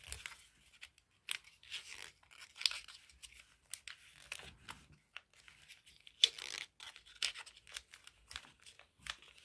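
Red origami paper rustling and crinkling as fingers fold and open it, in short scattered rustles with a sharper crinkle about six seconds in.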